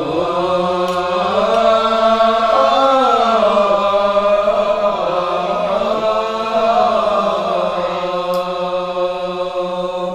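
A man's voice chanting a verse of a Sasak hikayat in the nembang style, in slow, drawn-out melismatic singing whose long held notes glide up and down.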